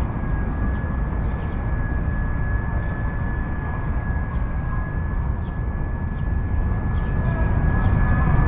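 WLtoys V922 micro flybarless RC helicopter in flight, its motor and rotor giving a steady high whine, with a low rumble underneath.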